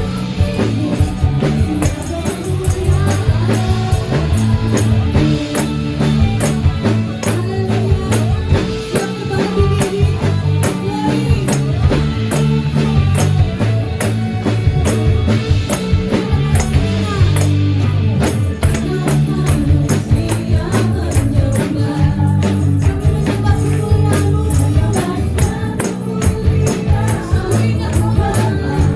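Indonesian praise and worship song with singing over a full band, with tambourines shaken and struck in a steady rhythm on the beat.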